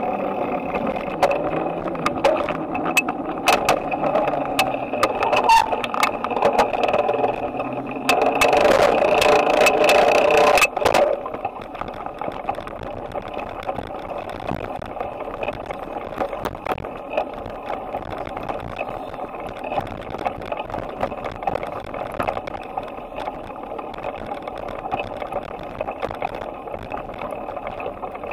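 Ride noise from a bicycle as heard by a camera mounted on its handlebars: clattering and rattling for about the first ten seconds, then a sudden drop to a quieter, steady rolling hum.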